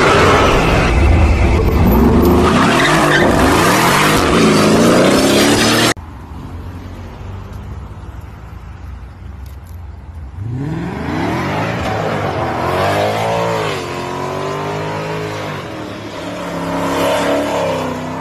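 Mercedes-AMG car engine revving hard with tyres screeching in wheelspin. The sound cuts off suddenly about six seconds in. From about ten seconds a car's engine revs up and down over and over with tyre squeal as it spins donuts, laying down tyre smoke.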